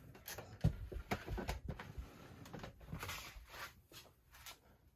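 Plastic box fans being handled and turned over: a string of irregular knocks, clicks and rubbing, with no motor hum.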